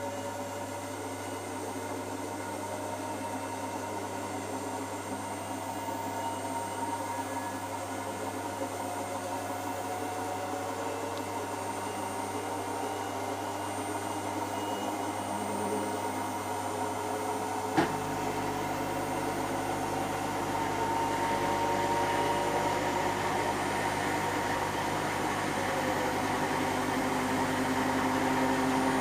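Hotpoint NSWM 843C washing machine spinning an empty drum on its inverter motor: a steady hum with several whining tones that rise slowly as it gets louder, with a single sharp click about eighteen seconds in. The owner is unsure whether the drum bearings sound like they might be starting to go.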